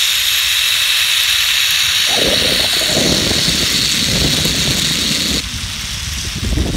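Zip-line trolley running along the steel cable with a steady high rushing whine, mixed with wind buffeting the microphone. The rushing drops off about five seconds in.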